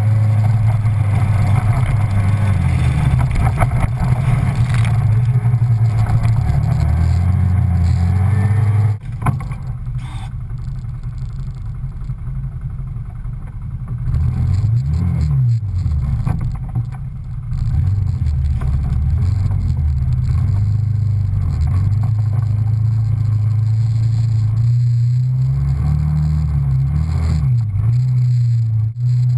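Off-road 4x4's engine running as it drives over rough dirt and rocky ground, with a steady low drone. About nine seconds in the sound changes abruptly and turns quieter, and a little later the revs rise and fall several times as it climbs.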